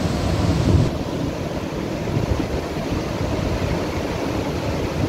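Ocean surf breaking and washing over coastal rocks, a steady rushing noise with wind buffeting the microphone. It is a little louder for about the first second.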